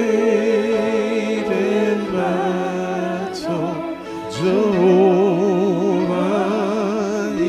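A woman singing a slow gospel worship song, holding long notes with wide vibrato over sustained backing tones.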